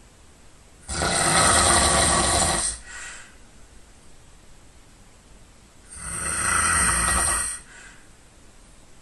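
A sleeping person snoring loudly: two long snores about five seconds apart, each trailed by a short, fainter breath.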